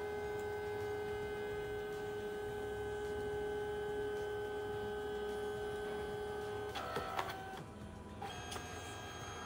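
Compact dye-sublimation photo printer's paper-feed motor whining steadily as it drives the photo paper out during one of its colour passes. About seven seconds in the whine stops with a few clicks, and a higher motor tone starts as the paper is drawn back in for the next layer.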